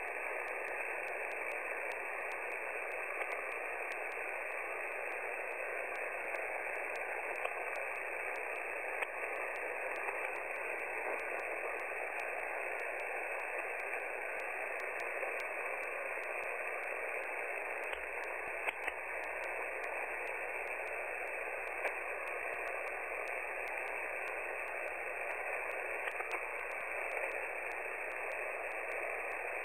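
Shortwave receiver tuned to 14.325 MHz upper sideband on the 20-metre amateur band, giving a steady hiss of static between transmissions with a few small clicks and crackles.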